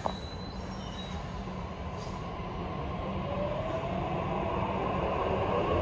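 Sydney Trains Waratah electric train pulling away, its motors starting a rising whine about halfway through as it gathers speed and grows louder. A short click comes right at the start.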